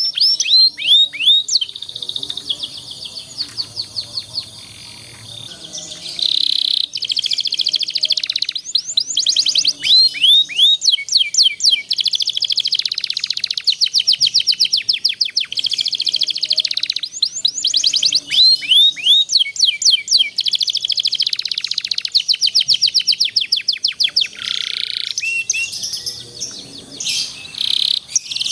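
A canary singing a long, continuous song of fast rolling trills and rows of quick downward-sweeping chirps, with only brief breaks. This is the rolling 'ngerol' style of song used as a model for young canaries to learn.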